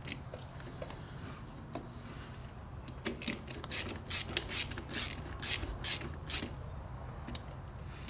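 Rear wheel and brake of a Harley-Davidson Road King turned by hand with freshly fitted rear brake pads, making irregular mechanical clicks, sparse at first and then about two a second from about three seconds in. The wheel is being turned to check that it spins without the new pads dragging.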